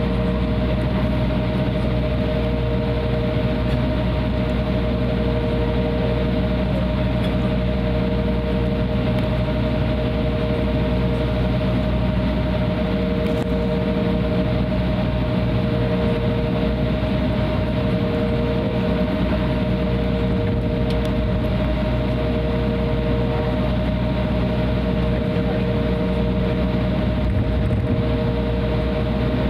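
Cabin noise of an Embraer 175 taxiing, its GE CF34 turbofans idling with a steady rumble and a steady tone. A second, slightly lower tone cuts in and out every few seconds.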